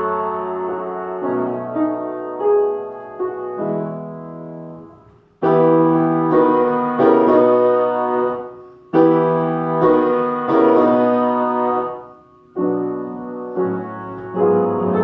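Solo piano playing a classical piece. Phrases of ringing notes fade almost to silence, and three times a new phrase enters loudly.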